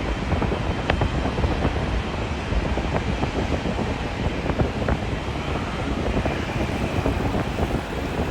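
Wind buffeting the microphone: a steady low rumble with irregular crackles.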